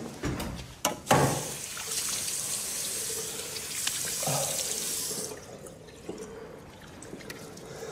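A sharp knock about a second in, then a tap running into a sink with water splashing as hands scoop it onto a face; the running water stops a little past the halfway point.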